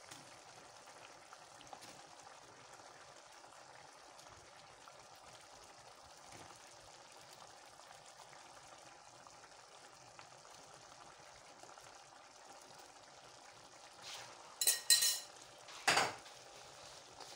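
Tomato sauce with meatballs simmering faintly in a metal pot. About fourteen seconds in, a few ringing clinks of a metal spoon against the pot, then a single knock.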